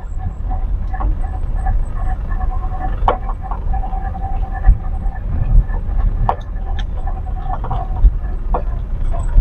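A car driving, with a steady low rumble of engine and road and a few short knocks and bumps along the way.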